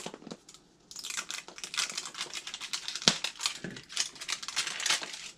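Crinkling and clicking of small plastic blind-box capsules being twisted open and handled, beginning about a second in, with one sharper snap near the middle.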